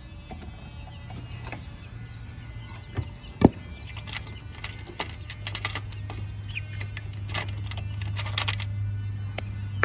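Young chickens peeping faintly over a steady low hum, with one sharp knock about three and a half seconds in and clusters of clicking and rattling in the second half.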